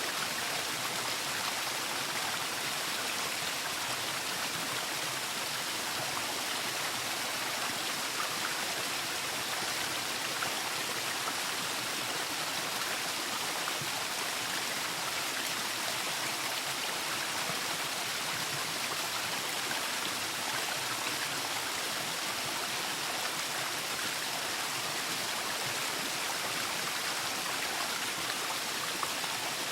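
Waterfall: falling water rushing and splashing in a steady, even hiss with no change.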